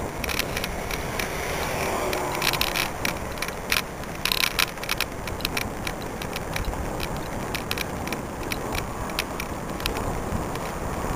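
Riding noise picked up by a bicycle-mounted camera: a steady rush of wind and tyres on asphalt, with frequent light rattling clicks that come thickest about four seconds in.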